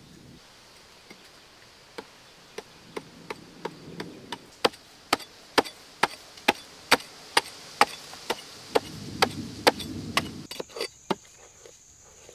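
Long-handled digging chisel with a flat metal blade jabbed down into hard-packed earth, a sharp chopping strike about twice a second. The strikes start faint about two seconds in, grow louder, and turn more ragged near the end.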